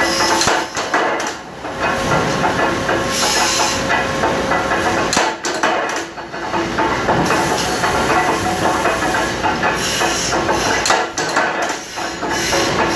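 Metal-cutting machine running in a factory, with a steady mechanical hum and repeated metallic clanks and knocks as metal stock is worked at it.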